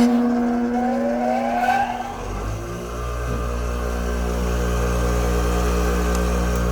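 A 20-year-old bench grinder's motor comes on about two seconds in and runs steadily with a low hum, a little bit loud.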